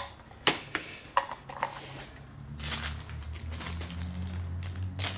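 Small metal and plastic parts being handled on a rubber bench mat: a few sharp clicks and light knocks in the first two seconds, then rustling and crackling over a low steady hum from about halfway through.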